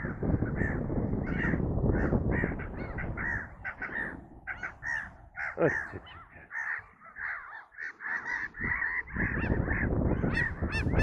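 A flock of gulls calling over and over, many short harsh cries overlapping several to the second, over a low rushing noise.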